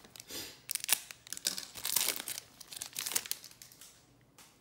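A Topps Chrome trading-card foil pack being torn open and crinkled by hand: a run of sharp crackling rustles for about three seconds, then quieter handling with a small click near the end.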